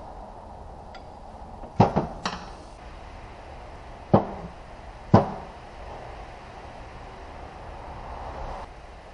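Four sharp knocks with a short ring, two close together about two seconds in and two more a couple of seconds later, from transmission parts or tools being handled and set down, over a steady background hum.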